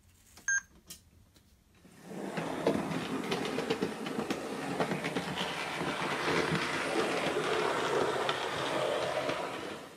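A short electronic beep from the Panasonic Lumix TZ90 compact camera as its focus is set, then, from about two seconds in, a model train running past on the layout: a steady rumble of small wheels on the track with rapid clicking over the rail joints, dropping away near the end.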